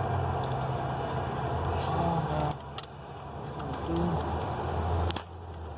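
Hand tools clicking against metal while screws are taken out of a throttle body, over a steady low rumble; the level drops abruptly twice.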